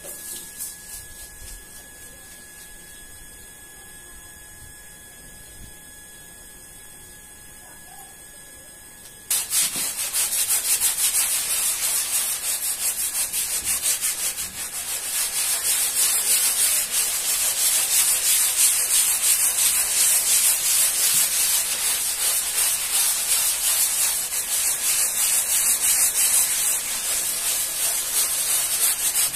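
A hand scrub brush scrubbing a soapy, foamy rug with rapid, scratchy back-and-forth strokes. It starts suddenly about nine seconds in, after a quiet stretch with a faint steady hum.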